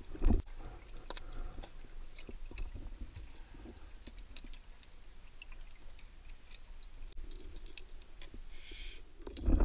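Muffled underwater sound heard through a camera housing during a cave dive: a low rumble with scattered small clicks and knocks. A dull thump comes just after the start and another at the end, with a short hiss shortly before the end.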